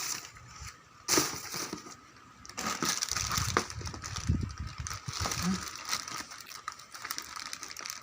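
Parcel packaging being handled and opened: irregular crinkling and crushing of wrapping with scattered clicks and knocks, loudest about a second in.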